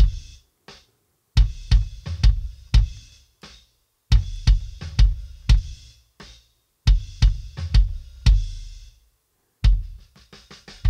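Rock kick-drum track played back through a channel-strip plugin with a noise gate, its range turned back so the gate works less obviously: groups of deep bass-drum hits with cymbal and snare bleed hissing behind them. The sound drops away in short gaps between the groups, about every two and a half seconds, where the gate closes.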